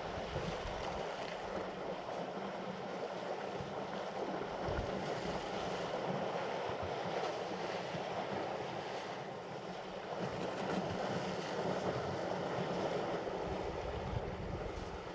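Steady wind noise, with low gusts buffeting the microphone now and then.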